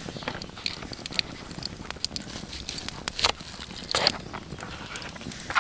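Folding knife slicing a garlic clove on a cutting board: irregular sharp clicks and knocks of the blade on the board, with a few louder knocks about three and four seconds in. A wood fire crackles in a small stove underneath.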